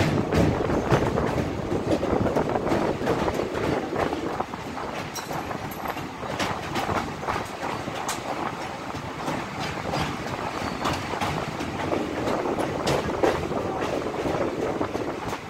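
Passenger express train running across a steel truss railway bridge, heard from a coach's open doorway: a steady rumble of wheels on rails, broken by many irregular clacks.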